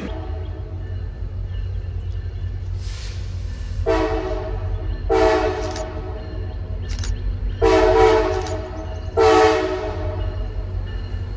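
Approaching diesel locomotives sounding a multi-note chime horn in four long blasts, starting about four seconds in, over the steady low rumble of the engines.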